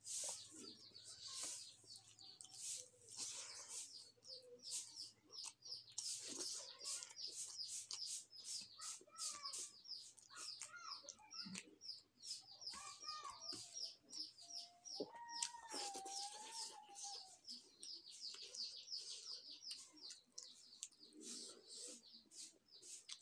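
Birds chirping quickly and continuously, with a longer wavering call about fifteen seconds in.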